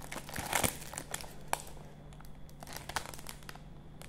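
Plastic multipack bag of Loacker ice-cream sandwiches crinkling as it is handled: dense crackling for the first second and a half, then sparser crackles.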